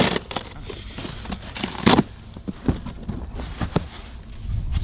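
Packaging of a DJI Mavic 3 Pro drone being handled and opened, rustling with scattered clicks and knocks, the loudest about two seconds in.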